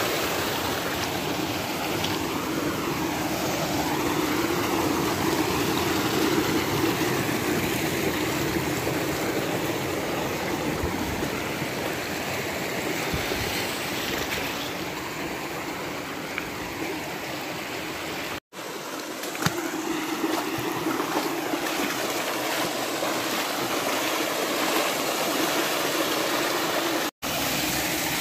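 Shallow mountain stream running over rocks in small cascades: a steady rushing and gurgling of water. It breaks off for an instant twice, about two-thirds of the way through and again near the end.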